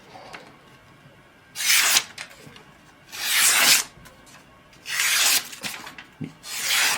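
Freshly sharpened meat cleaver slicing through material in a cut test, with four slicing strokes of about half a second each, roughly every one and a half seconds.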